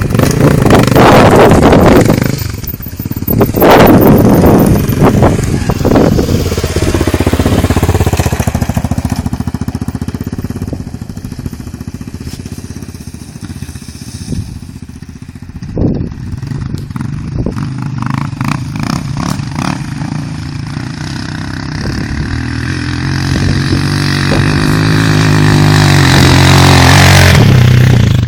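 Off-road trail motorcycle engines running and revving, loud in the first few seconds, quieter through the middle, then building to a loud, steady engine note near the end.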